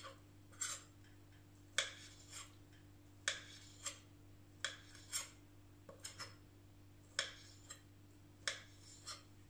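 Chef's knife chopping raw sea bass into small cubes on a stone board: a dozen or so sharp knocks of the blade hitting the stone, irregular, about one every half second to a second.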